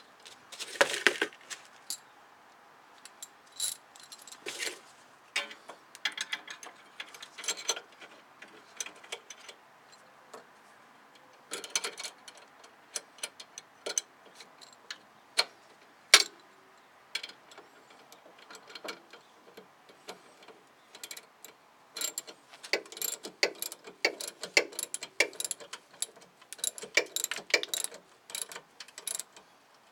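Hand socket ratchet wrench clicking as a bolt on a car's brake assembly is turned, in short runs of rapid clicks, mixed with clinks of metal tools and parts being handled.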